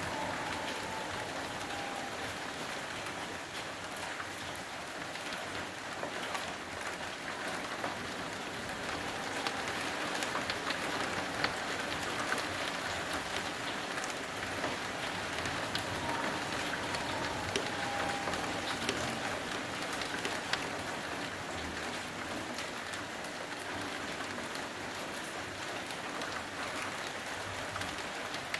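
Steady rain falling over a street and buildings, with scattered sharp ticks of drops striking close by.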